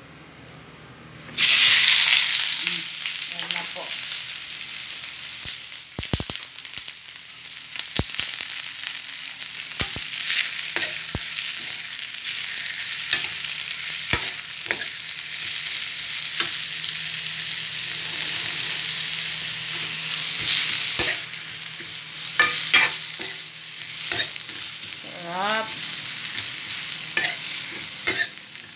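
Sliced white onion sautéing in hot oil in a metal pan: a loud sizzle starts suddenly about a second and a half in as the onion goes in, then carries on steadily while a metal spoon stirs it, with scattered clicks and scrapes of the spoon against the pan.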